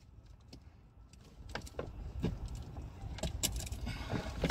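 Scattered light clicks and knocks of hands working a truck's plastic under-dash fuse module, starting about a second and a half in, over a low rumble.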